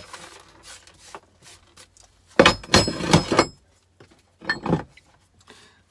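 Small scrap electronic parts clattering and clinking as they are handled and dropped, with a busy run of knocks about halfway through and a couple more a second later.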